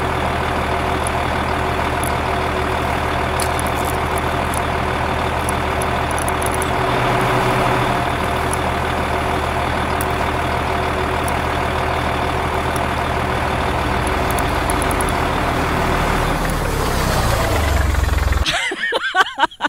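Heavy truck engine idling steadily, holding an even pitch, then breaking off abruptly near the end.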